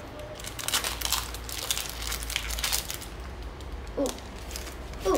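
Plastic wrapper of a Panini football card pack crinkling and tearing as it is opened, a run of rustles lasting about two and a half seconds. Two short vocal sounds follow near the end.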